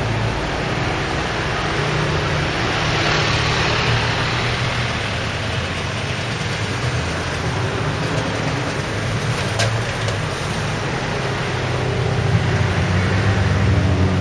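Street traffic: vehicle engines running and passing, a steady low hum under road noise. One vehicle swells past about three seconds in, and a louder engine hum builds near the end.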